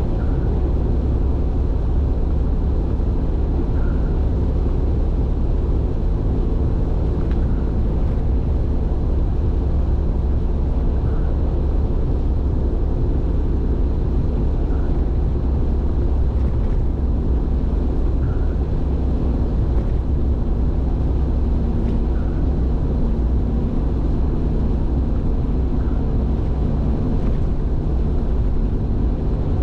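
Steady road and engine rumble of a car cruising on an expressway, heard from inside the cabin. Faint short high blips recur about every three and a half seconds.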